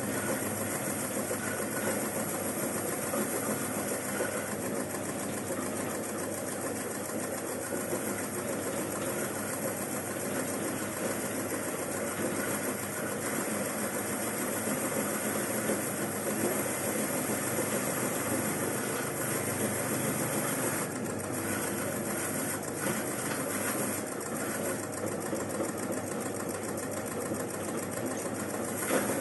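Homemade oil palm frond stripping machine running steadily, a continuous mechanical noise from its motor and turning parts as it strips leaflets off the midribs.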